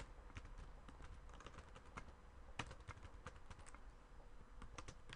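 Faint keystrokes on a computer keyboard: irregular clicks of someone typing a line of text.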